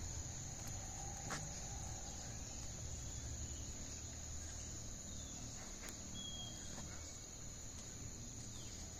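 Insects chirring steadily at a high pitch, with a faint low rumble underneath.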